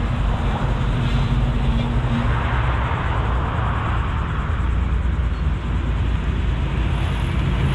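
1986 Chevrolet Silverado pickup's engine running as it drives in, a steady low rumble.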